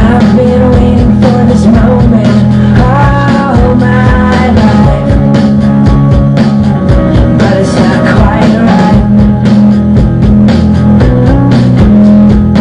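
Loud rock music: a steady drum beat under guitar and a singing voice.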